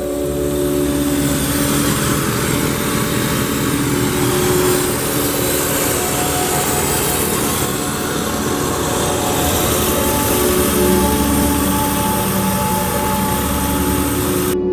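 Ford LTD Country Squire's V8 engine idling steadily, heard with the hood open, over a steady hiss.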